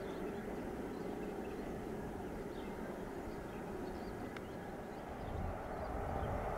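Distant freight train running steadily, heard as a low rumble, with faint bird chirps. From about five seconds in a louder, deeper rumble takes over.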